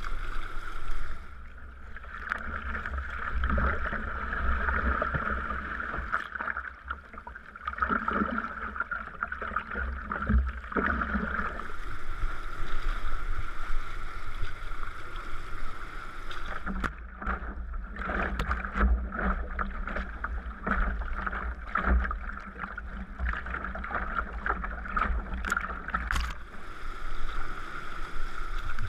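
Sea kayak under way: paddle strokes and water splashing and sloshing along the hull, with a low rumble underneath.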